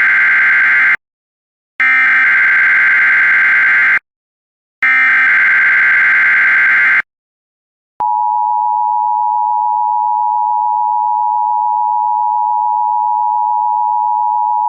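Emergency Alert System SAME header from NOAA Weather Radio: the harsh digital data burst repeated three times, the first already under way, each about two seconds with short gaps. About eight seconds in, the weather radio's warning alarm tone begins, a single steady tone that sets off alert receivers.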